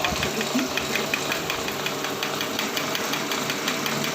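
Electric-motor-driven meat mincer running: a steady motor hum with a fast, regular ticking.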